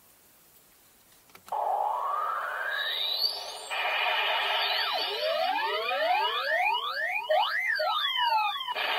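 CSM Kamen Rider 1 Typhoon transformation belt playing one of its finishing-move sound effects through its small speaker: a click about a second and a half in, then a loud rush of noise with a rising sweep, then many quick electronic tones sliding up and down, cutting off near the end.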